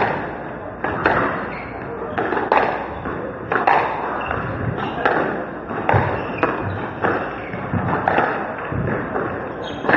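Squash rally: the ball is struck by rackets and smacks off the court walls in a run of sharp, echoing hits, often in quick pairs, about every second or so.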